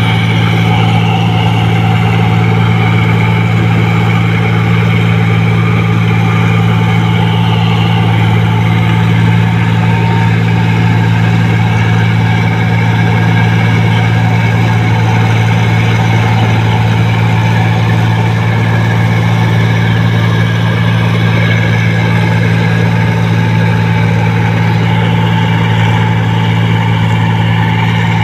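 New Holland 1545 combine harvester running steadily at working speed as it cuts and threshes rice, a constant deep engine drone with the machinery's whirr over it.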